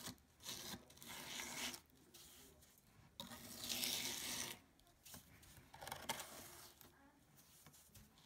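Metal scraper blade drawn over a carved wooden panel, pushing off wet bicarbonate-and-vinegar stripping paste in about four scraping strokes, the longest and loudest about three seconds in. The paste is being lifted to strip the old wax finish.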